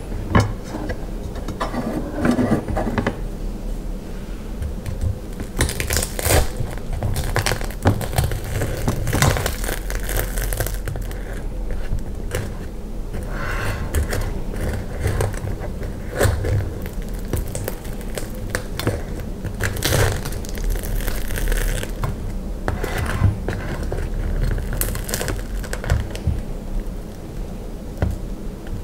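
Wooden fork and spoon cutting into and prying apart a fried ice cream ball, its crisp fried coating crackling and crunching in repeated short bursts, with scraping of the utensils against the crust.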